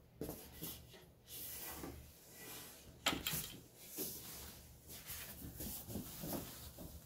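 White wooden crib side rails being handled and set down on cardboard packaging: scraping and rustling with a few knocks, the sharpest about three seconds in.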